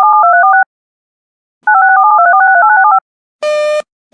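Two rapid strings of touch-tone (DTMF) beeps from an emergency alert encoder, each note a quick two-tone chirp stepping from digit to digit, signalling the close of the spoken alert. A buzzy beep sounds near the end.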